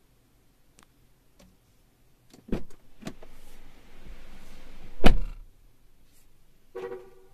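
A few light clicks, then the driver's door of a 2019 Cadillac XTS unlatched and opened with several thumps, the loudest about five seconds in, and a steady hiss of outside air coming in between them. A short tone sounds near the end.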